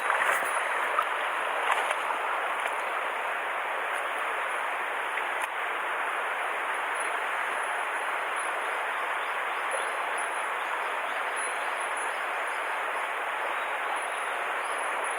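Mountain stream water rushing steadily, with a few faint clicks in the first two seconds.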